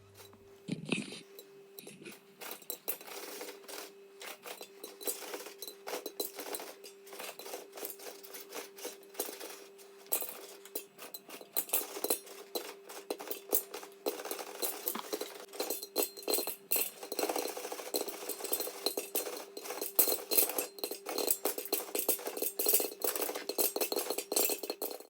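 Popcorn kernels popping in a covered pot on the stovetop: a dense, irregular run of sharp pops and clinks against the pot and lid, growing thicker about ten seconds in, over a faint steady hum.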